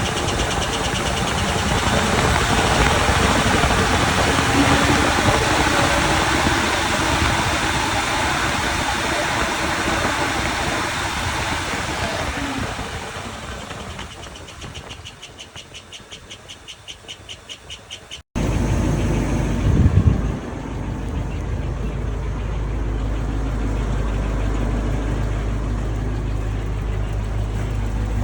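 GM 8.1-litre Vortec V8 in a motorhome running, with a fast, rhythmic high-pitched chirping over the engine sound. The chirp is an undiagnosed noise that appears once the engine is warm; mechanics have suggested lifter noise or piston slap. Partway through, the sound cuts abruptly to a lower, steadier engine running.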